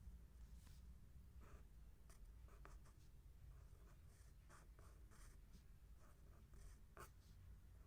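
Faint scratching of handwriting on paper: short, irregular writing strokes, over a low steady hum.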